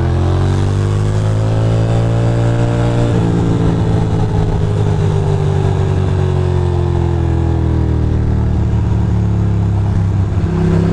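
Ducati Monster 620's air-cooled L-twin engine pulling under way, its pitch rising for about three seconds, then a brief break like a gear change, then the pitch sinking slowly as the bike eases off. Wind noise runs underneath.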